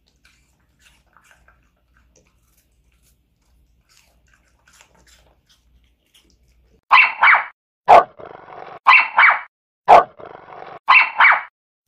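A Welsh Corgi puppy crunching apple slices, faint ticks. From about seven seconds in, loud dog barks come in an even pattern: two quick barks and a sharp click, repeating every two seconds.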